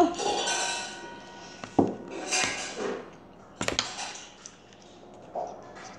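Tabletop handling sounds: dishes and a bottle clattering, with rustling and a sharp knock about two seconds in and another a little before four seconds.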